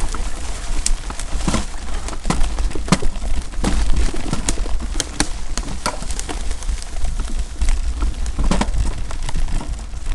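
Mountain bike rolling fast over a rough forest trail: irregular clatter and knocks as the bike jolts over bumps and roots, over a steady low rumble.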